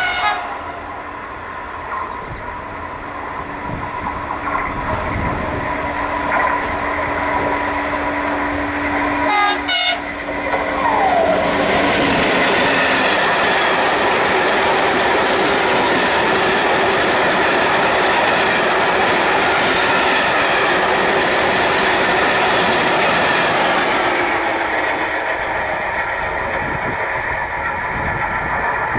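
A CAF-built Class 601 dual-mode freight locomotive approaching and passing, with a brief horn sound right at the start and a steady running tone that grows louder as it nears, passing about ten seconds in. A long train of empty coil wagons then rolls by with steady wheel clatter for about twelve seconds and fades away near the end.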